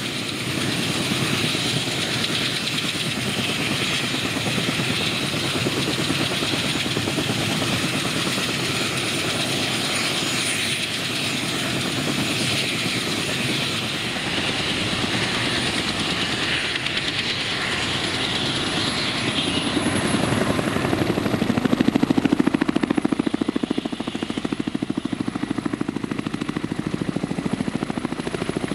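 Kamov Ka-32 coaxial-rotor helicopter running on the ground, its twin turboshaft engines and two rotors going steadily. The sound swells for a few seconds about two-thirds of the way through.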